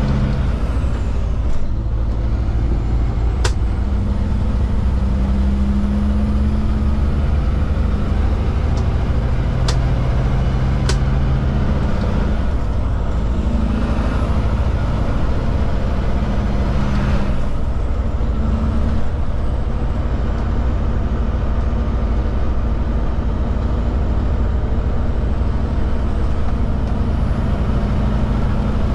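Heavy truck's diesel engine heard from inside the cab, a steady drone under load whose pitch steps up and down as the driver changes gear. A few sharp clicks and a short hiss of air come through over the drone.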